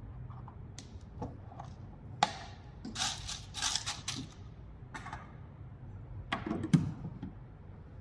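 Coffee beans clicking and rattling against the plastic of a coffee machine's bean hopper as a hand works them in: scattered clicks, then a denser rattle for about a second and a half. Near the end comes a heavier knock as the hopper lid is set in place.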